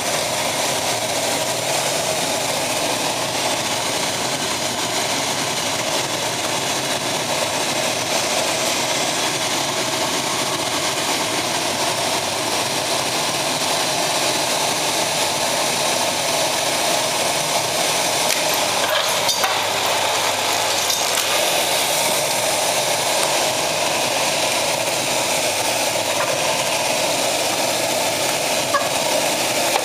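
Pellet burner running at full power: a steady rushing hiss of its combustion fan and flame, with a few faint clicks.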